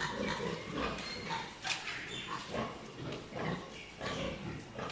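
Pigs grunting in short, irregular bursts.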